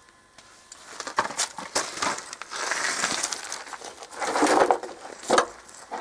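Gravel crunching and scraping with a few sharp knocks as a person slides a plastic oil drain pan into place and gets down onto the gravel under a truck. The loudest crunches come about four and a half and five and a half seconds in.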